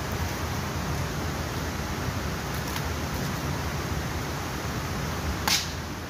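Waterfall rushing, a steady noise with a heavy low end, broken about five and a half seconds in by one sharp crack.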